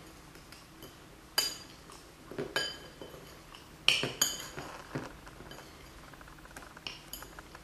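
A spoon clinking and scraping against a bowl while stirring a dry flour-and-spice stuffing mix, with several sharp clinks, the loudest about four seconds in.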